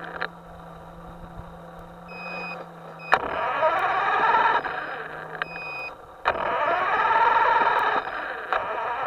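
Small electric motor of a radio-controlled boat whining in surges, its pitch sweeping up and down, with a steady electronic hum and short beeping tones.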